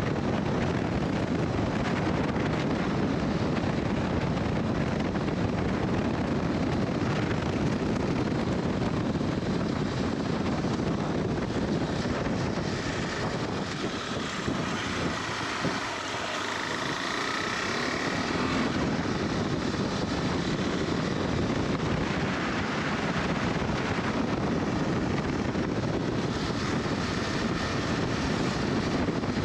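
KTM 390 Adventure's single-cylinder engine running on the move, mixed with heavy wind noise on the microphone. The low engine sound eases off briefly around the middle, then comes back.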